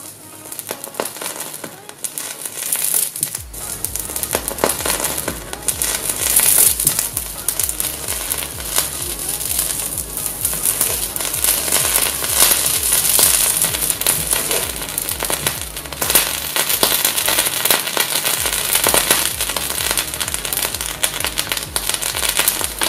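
Loud sizzling and crackling of a red-hot knife blade cutting into a toothpaste tube, the paste boiling and spitting against the hot steel. Background music with a steady bass beat comes in a few seconds in.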